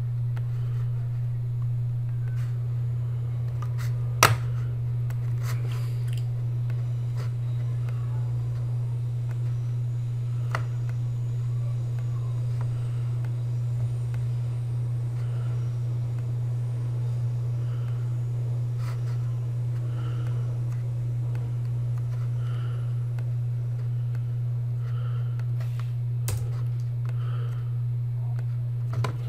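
A steady low hum with no speech over it, broken by a few sharp clicks: one about four seconds in, one about ten seconds in, and one near the end.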